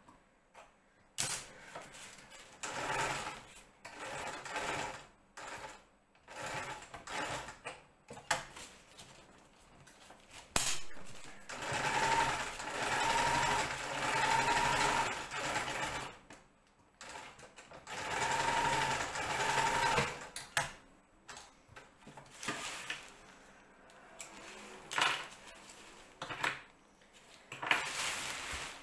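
Home sewing machine stitching a seam in kite fabric, running in spurts of a few seconds with stops in between; the longest runs come near the middle. Between runs there are short rustles and knocks of the fabric being shifted.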